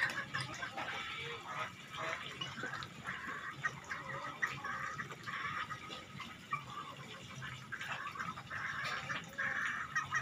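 Water dripping and splashing, an uneven patter of small drips and splashes.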